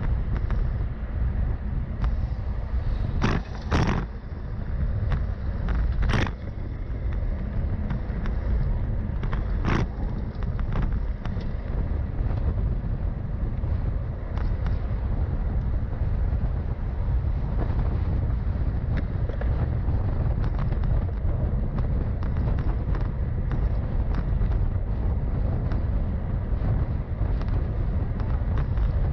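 Steady wind and road rumble on the microphone of a moving rider, with a few sharp clicks or knocks in the first ten seconds.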